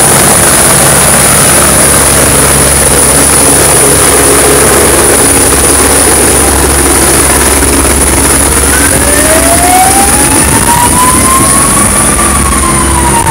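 Loud, steady engine noise, with an emergency vehicle siren starting up about two-thirds of the way in, rising slowly and beginning to fall near the end.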